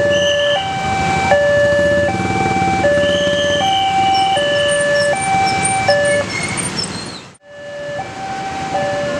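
Railway level crossing warning alarm: an electronic two-tone signal alternating steadily between a low and a high note, each held for under a second, over a low rumble. It cuts out abruptly near the end and picks up again with the same alternation.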